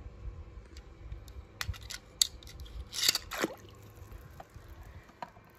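A string of light, irregular clicks and taps, with one short falling squeak about three and a half seconds in.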